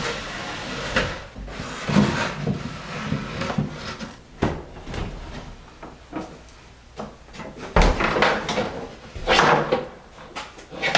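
Irregular knocks and clunks of an over-the-range microwave being unbolted and lifted down off its wall-mounting bracket under the cabinets, with a loud thump about eight seconds in and more clatter near the end.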